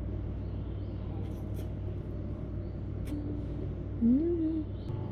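Steady low room hum with a couple of faint clicks, then, about four seconds in, a short rising 'mm' from a woman's voice as she tastes her food.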